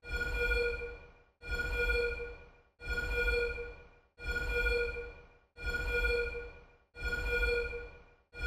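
Laboratory emergency alarm sound effect: a blaring steady-pitched tone with a low rumble under it, repeating about every second and a half. Each blast starts sharply and fades away before the next one begins.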